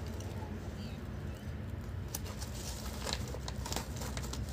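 Clear plastic bag crinkling and small plastic toy figures clicking against each other as a hand rummages in the bag, mostly in the second half, over a steady low hum.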